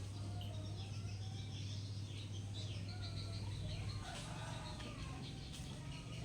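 A caged bulbul giving short, scattered chirps and brief whistled notes, over a steady low hum that stops about four seconds in.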